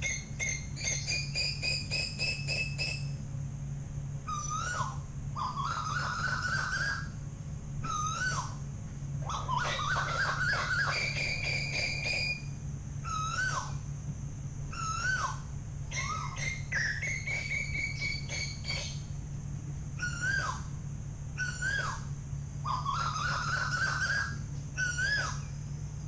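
Asian koel calling: runs of short whistled notes that rise in pitch, repeated several times, with other small birds chirping higher between them, over a steady low hum.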